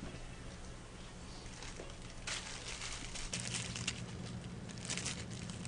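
Clear plastic fortune-cookie wrapper crinkling as it is torn open and handled, in a longer spell from a little past two seconds in and a shorter one near the end.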